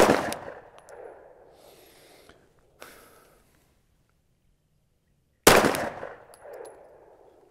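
Two single shots from a 9mm Glock pistol firing factory ammunition, about five and a half seconds apart. Each shot is loud and sharp and trails off in an echo lasting about a second.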